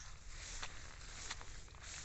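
Footsteps with rice plants rustling: three soft scuffs over a low steady rumble.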